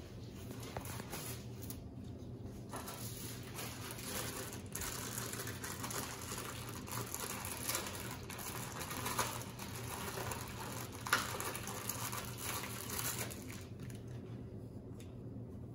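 Crinkly, scratchy rustling of bandage material and its packaging being handled, over a steady low hum; the rustling dies down near the end.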